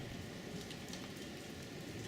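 Rain falling: a steady hiss with scattered drips and splashes.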